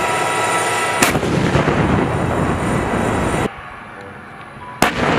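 Tank cannon-fire and explosion sounds: a loud, noisy blast with a sharp crack about a second in. The blast noise drops away at about three and a half seconds, and a second sharp crack and blast come near the end.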